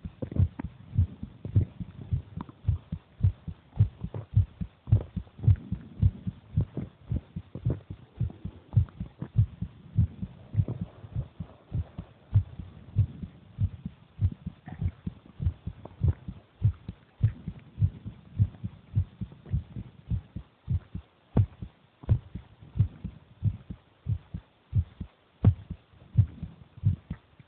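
A human heartbeat: a steady, regular run of short, low thumps.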